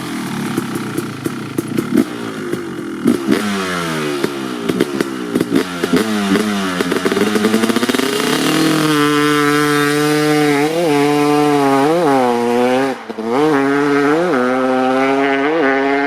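KTM SX 250 two-stroke motocross engine revving hard. Through the first half the revs rise and fall over and over with a crackle. From about halfway it holds a steady note, broken by about five quick throttle blips.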